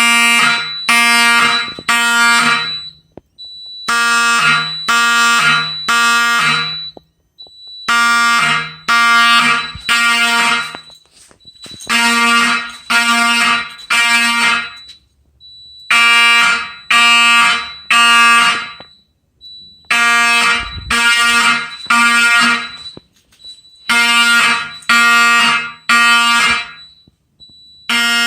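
Fire alarm horns sounding in the code-3 temporal pattern: three pulses, a pause, then again, repeating about every four seconds. This is a general alarm set off from a manual pull station. A thin, steady high tone runs underneath and carries on through the pauses.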